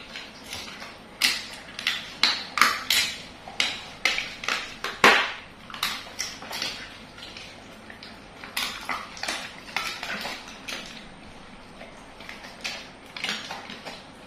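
Two dogs chewing cooked chicken bones, a rapid, irregular run of sharp crunches and cracks as the bones break between their teeth, in bursts that are loudest in the first half.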